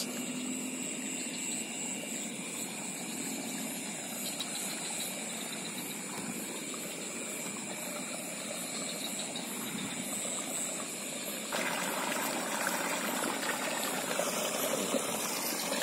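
Steady watery noise of wading through a flooded rice paddy, growing louder about eleven seconds in, over a constant high trill of night insects.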